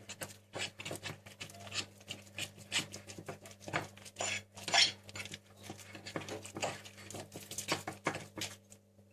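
Dessert spoon stirring glue-and-detergent slime on a plate: a busy run of irregular clicks, scrapes and squelches as the just-set slime is worked.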